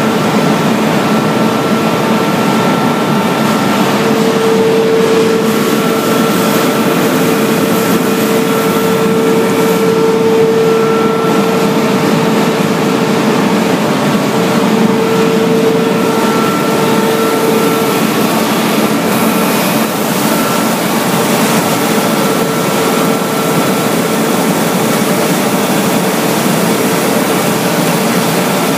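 Dazzini TCI260VH quarry chain-saw machine running steadily while cutting slate: a loud, even mechanical drone with a steady hum in it that swells for a while and then settles back.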